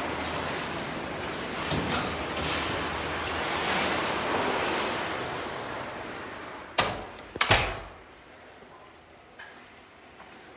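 Wind rushing over the microphone, fading out after about six seconds, then two loud bangs less than a second apart as a door is shut.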